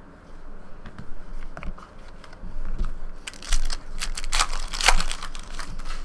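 Trading cards and their foil pack packaging being handled: irregular crinkling, rustling and clicking, loudest about three to five seconds in.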